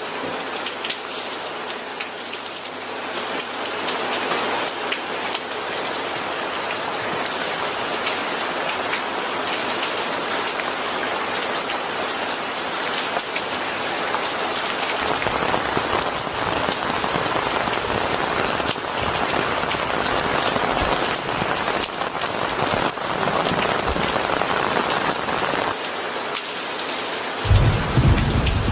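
Steady heavy rain falling and pattering on surfaces, a dense patter of drops. Near the end a low rumble of thunder begins.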